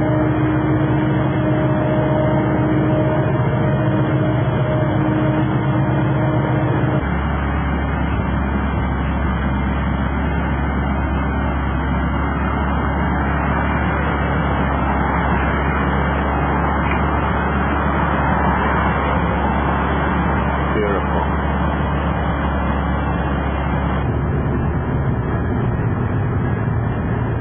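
Steady car cabin noise: engine and road rumble heard from inside the car. About seven seconds in, a hum with a few steady tones gives way to a deeper, even rumble.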